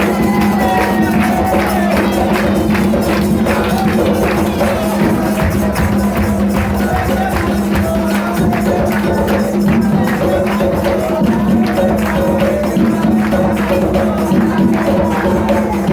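Live music with fast, dense jingling and shaking percussion and voices singing, over a steady low hum.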